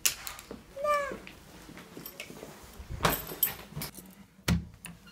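A cat's single short meow about a second in, among handling knocks and rustles, with a loud thump near the end.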